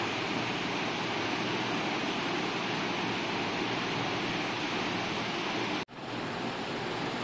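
Steady even rushing noise with no speech, cutting out for an instant about six seconds in and then carrying on.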